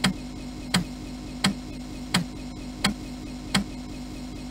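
Opening of an Amiga intro's soundtrack: a sharp, clock-like tick about one and a half times a second over a steady low hum.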